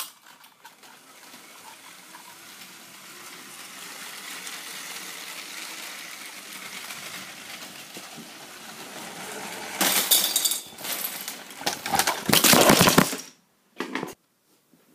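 Motorised Lego train running along plastic track, a steady whirr that slowly grows louder. About ten seconds in, loud clattering of plastic Lego bricks breaking apart and scattering in a crash, loudest in a burst a little after twelve seconds.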